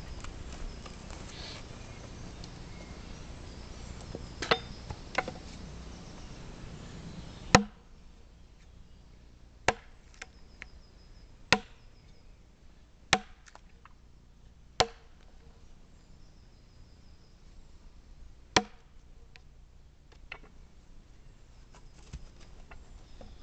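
Sharp axe chops biting into the side of a soft white poplar log as it is hewn square into a beam. The blows come one every second and a half to two seconds, with the loudest about seven and a half seconds in.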